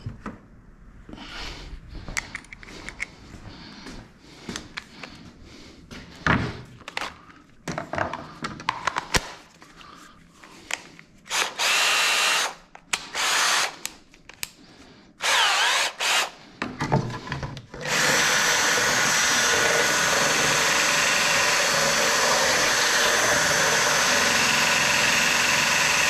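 Scattered handling clicks and knocks, then a power drill run in several short bursts of a second or two. About eighteen seconds in, a loud steady mechanical run starts and holds without a break.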